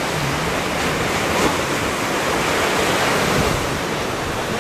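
Ocean surf washing onto a sandy beach: a steady rushing noise.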